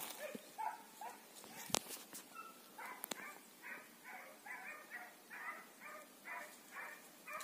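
Faint baying of hunting hounds on a hare's trail: a few scattered calls, then from about three seconds in a steady run of barks, about three a second. A single sharp knock comes about two seconds in.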